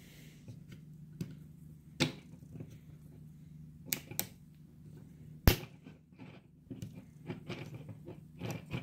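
Hard plastic clicks and snaps from the chest panel and parts of a Transformers Siege Optimus Prime action figure being handled and pressed shut over a light-up matrix cube. The sharpest snap comes about five and a half seconds in, with a run of smaller ticks near the end over a low steady hum.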